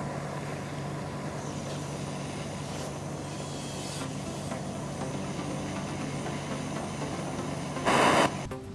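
Handheld gas torch flame hissing steadily, with a low hum underneath. A brief, much louder rush of noise comes near the end.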